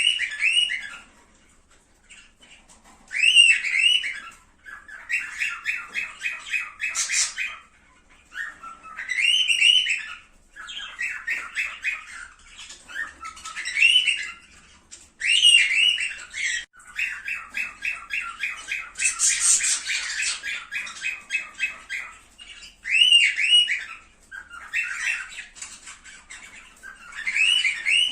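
Cockatiels calling: short squawky whistles that rise and fall, repeated every few seconds, alternating with rapid chattering runs of quick notes, one of them lasting about five seconds.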